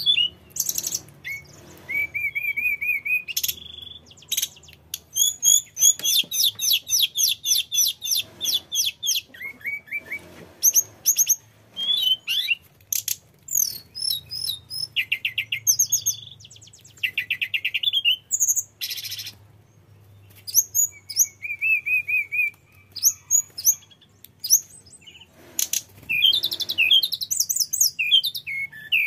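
Hill blue flycatcher (tledekan gunung) singing a long, varied song of high whistled notes, rapid trills and quick chattering runs, phrase after phrase with short pauses between.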